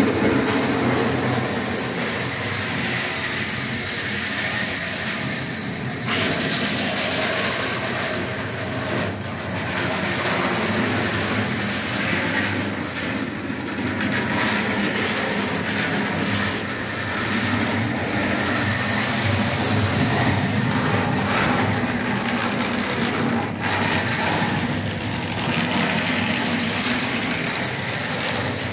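A model train running on the layout's track: the miniature locomotive's electric motor and the wagons' wheels make a steady rolling rattle on the rails, with a thin high whine underneath.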